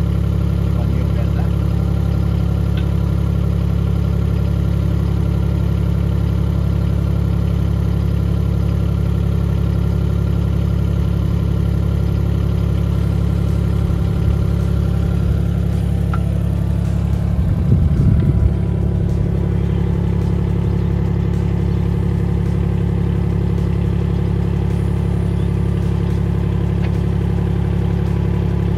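HAIHONG CTX8010 mini excavator's engine idling steadily, with a brief louder surge about two-thirds of the way through.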